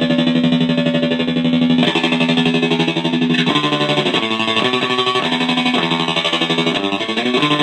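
Electric guitar, a Framus Stratotone through a SineLabs Reptard repeat/tremolo pedal into a Vox Foundation amp, its held notes chopped into a fast, even pulsing. From about three and a half seconds in it plays a run of shorter changing notes, still pulsing.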